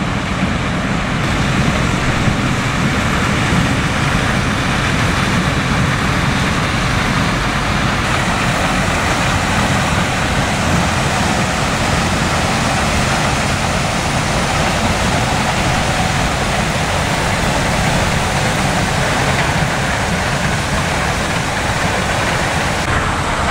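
Combine harvester running steadily as it harvests corn, with a Fendt tractor and grain cart driving alongside: an even, unbroken engine and machinery noise that neither rises nor falls.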